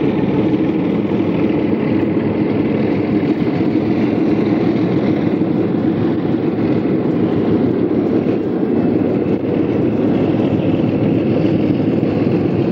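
Alco RS-11 diesel-electric locomotives of a four-unit lash-up running as they pass close by, a steady engine drone.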